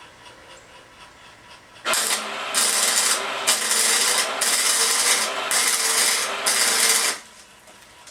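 Stick-welding arc crackling and hissing as a weld is run on small steel gun parts, striking about two seconds in and breaking off after about five seconds.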